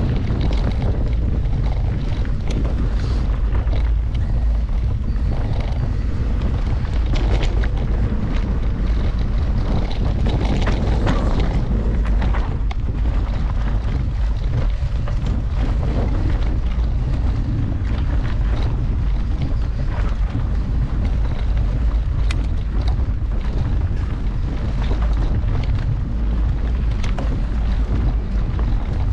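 Wind rumbling over the microphone of a camera carried on a moving mountain bike, with scattered knocks and rattles from the bike on a rough trail.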